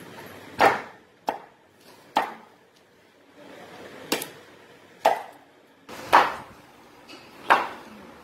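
A heavy curved cleaver chopping raw green mangoes, stone and all, on a wooden board for avakaya pickle. There are about seven hard blows at uneven intervals, each with a short ringing tail.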